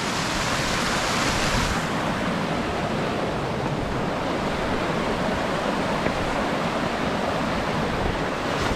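Steady rushing noise of wind buffeting the microphone, brighter and hissier for the first couple of seconds.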